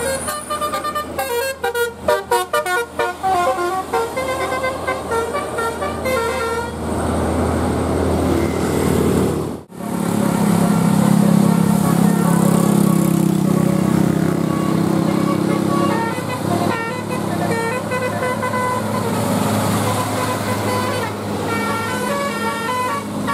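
Bus 'telolet' musical horn playing quick stepping melodies over a running bus engine. After an abrupt break about ten seconds in, a louder, steady low drone takes over, and the horn melody starts again near the end.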